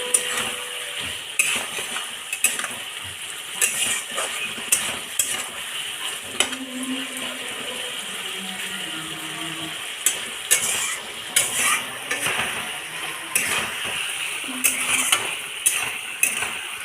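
A spatula stirring and scraping a pan of mustard-paste curry, with irregular clinks against the pan over a steady sizzle as it bubbles on the flame.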